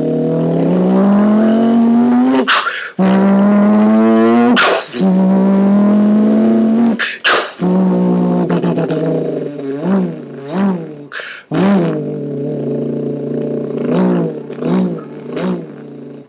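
A person imitating a big-block muscle-car engine with his mouth, buzzing the lips. The pitch climbs in several pulls with short breaks between them, like revving through the gears with shifts. Near the end come a handful of quick up-and-down revs like throttle blips.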